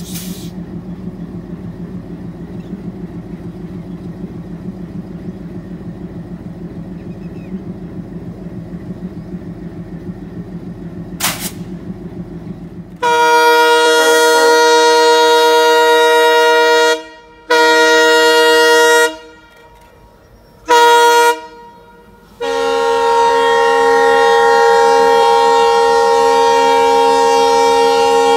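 Diesel locomotive engine running with a steady low, pulsing throb, then a locomotive horn blown four times about halfway in as the train approaches: a long blast, a shorter one, a brief toot, and a final long blast of several tones sounding together.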